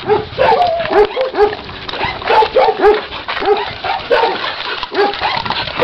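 Dogs barking in a rapid run of short yapping barks, about two to three a second.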